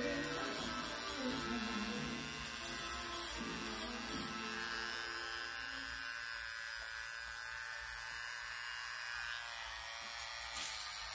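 A small electric motor buzzing steadily with a high whine, its pitch wavering slightly near the end.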